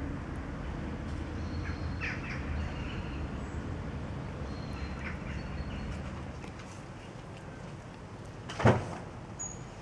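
Outdoor street ambience: a steady low rumble of distant traffic that eases after about six seconds, with a few faint bird chirps. A single sharp thump about nine seconds in is the loudest sound.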